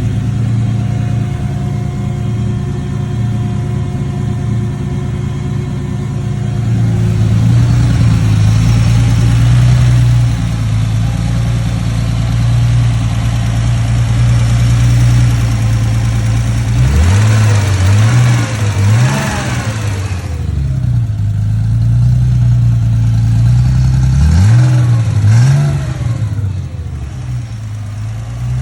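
1982 Porsche 911SC's air-cooled flat-six running with a ticking noise. It idles steadily, then is revved in short throttle blips in two groups, about 17 and 24 seconds in, and once more near the end.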